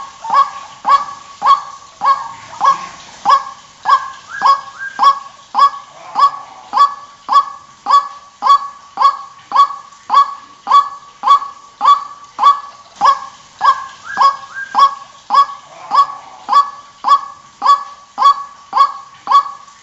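White-breasted waterhen calling a short, honking note over and over at an even pace, a little under two calls a second, without a break.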